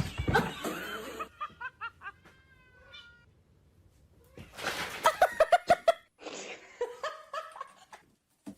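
A person laughing in quick, repeated bursts a little after the middle.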